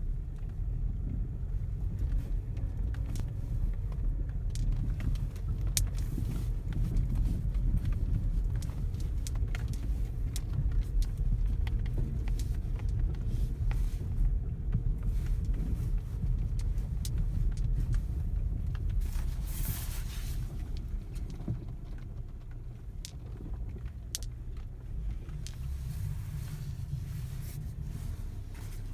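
Car on the move, heard from inside the cabin: a steady low road rumble with scattered sharp knocks. The knocks fit a knock under the steering wheel, which the owner puts down to the electric power steering. There is a short hiss about twenty seconds in.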